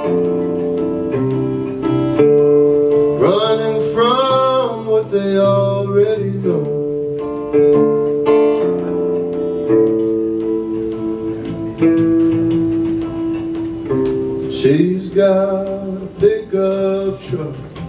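Electric guitar played live, picked chords ringing and changing every second or so, between sung verses. A man's voice comes in twice with wordless, wavering held notes.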